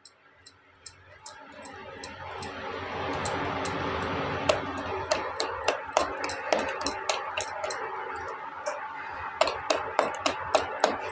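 Wire whisk beating cake batter by hand in a metal pot: a steady swishing with a fast run of sharp clicks as the wires strike the pot's side, building up over the first few seconds.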